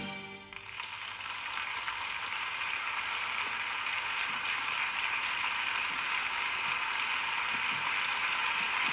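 The music ends about half a second in, and a steady, dense patter of audience applause follows, slowly growing louder.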